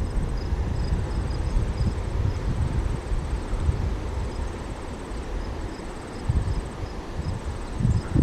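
An insect, cricket-like, trilling high-pitched in repeated bursts of about a second each, over a low rumble of wind on the microphone.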